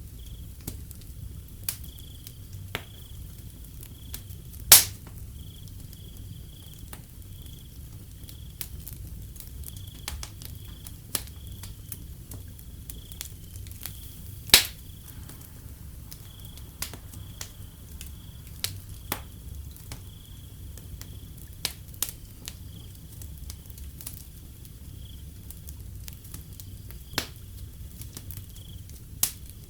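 Wood fire crackling with scattered sharp snaps and two loud pops, about five and fifteen seconds in, over a low steady rumble. Crickets chirp in a steady pulsing high trill throughout.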